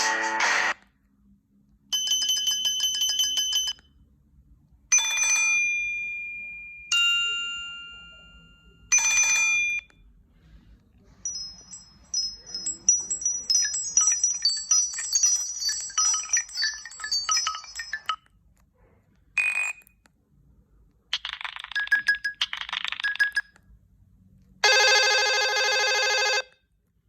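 Nokia C2-01 mobile phone tones played one after another, about eight short tones and jingles with brief silences between them. There are chimes that ring out and fade, a short electronic melody about halfway through, and a buzzy tone near the end.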